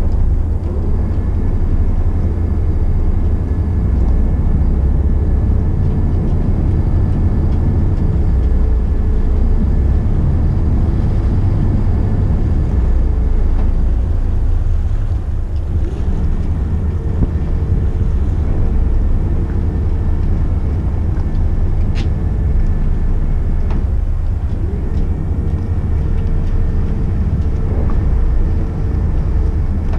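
Motor yacht's engines running at low speed during slow close-quarters maneuvering, a steady low rumble mixed with wind on the microphone. A steady whine comes in for stretches of several seconds, about a second in, again in the middle and near the end. One sharp click is heard about two-thirds of the way through.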